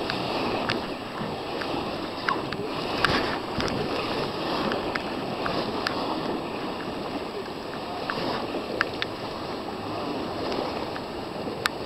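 River water rushing and splashing against an inflatable raft's tube, a steady hiss broken by scattered sharp ticks and pops.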